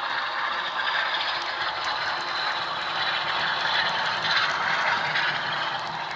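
Sound decoder in a model Class 46 diesel locomotive playing a recorded Class 46 engine through a small iPhone-type speaker, mixed with the model's wheels clattering on the track. It grows louder as the locomotive passes close, about four seconds in.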